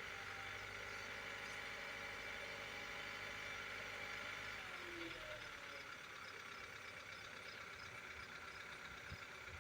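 2015 Kia Soul's four-cylinder engine running steadily at about 1500 RPM with a ticking knock. The knock is piston slap, the pistons scoring the cylinder walls. The low part of the engine sound eases about halfway through.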